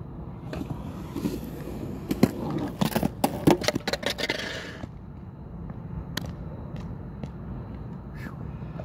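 Surfskate on Carver CX trucks rolling over a concrete bowl, then a quick run of sharp clacks and scrapes about two to four seconds in as the rider comes off and the board clatters on the concrete. After that there is only a low rumble and a few scattered clicks.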